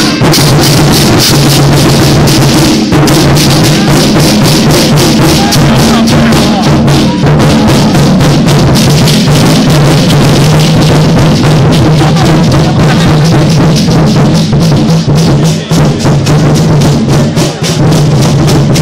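Chinese war drums (zhangu), large red barrel drums beaten hard in a fast, dense rhythm by a procession drum troupe, with cymbals clashing. Very loud throughout.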